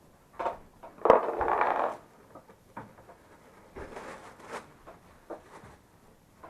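Handling noises of parts being worked by hand: a sharp click about a second in, then about a second of scraping and rustling, followed by scattered small knocks.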